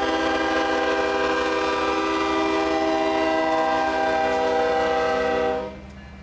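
Union Pacific diesel freight locomotive's air horn sounding one long blast, several notes together held steady, cutting off sharply near the end.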